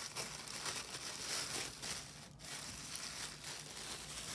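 Small clear plastic jewelry baggie crinkling as it is handled and opened, with a short break about two seconds in.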